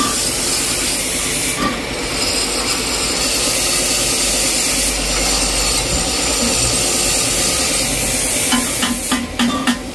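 Steady hissing noise, then near the end a quick run of sharp knocks, about four to five a second, each with a short low ring.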